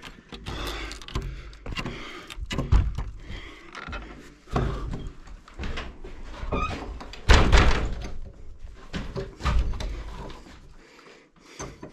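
Old wooden hut door being opened and banged shut: an irregular run of knocks, thuds and rattles, the loudest about seven seconds in.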